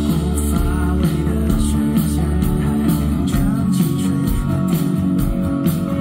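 Live rock band playing: a singer sings over electric guitar, bass and drums.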